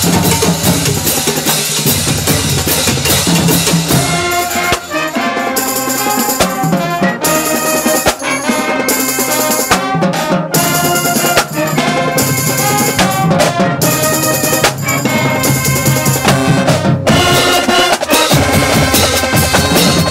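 High school marching band playing: a drumline of snare drums, bass drums and crash cymbals with trumpets, sousaphones, saxophones and flutes. The drums lead the opening seconds. From about five seconds in, the horns and flutes play a melody cut by several sudden short breaks.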